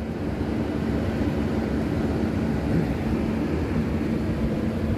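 Fan running steadily: an even airy whir with a constant low hum underneath, blowing to keep the room cool.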